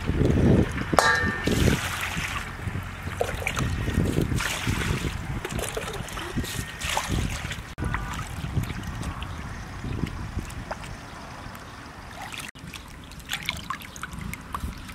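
Raw squid being cleaned: a knife working through the squid with a short ringing clink about a second in, then hands swishing the squid pieces in a steel bowl of water, water trickling and dripping as they are lifted out.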